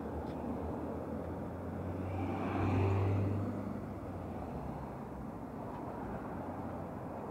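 A vehicle passes by, growing louder to a peak about three seconds in and then fading, over a steady background rumble.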